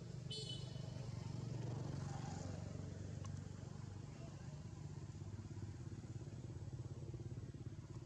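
A motor engine running steadily, swelling slightly about two seconds in, with a brief high-pitched chirp near the start.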